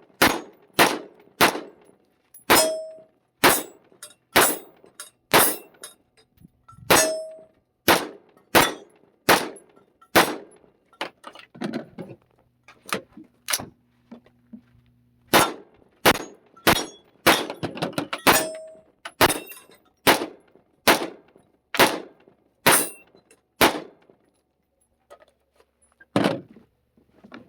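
AR-pattern rifle fitted with an Armaspec H2 sound mitigation buffer, fired semi-automatically: about two dozen single shots at roughly one a second, with a couple of short pauses. Three of the shots are followed by a brief metallic ring.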